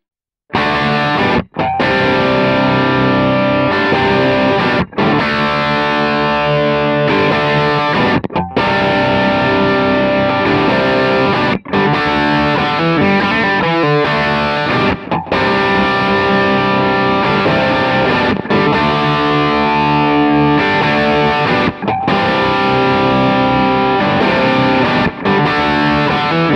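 Electric guitar, a Gibson Les Paul, played through a Kemper Profiler's crunch profile of a 1962 Fender Showman amp pushed by a Boss SD-1 overdrive, with the effects on. It plays riffs and chords from about half a second in, with brief breaks every few seconds.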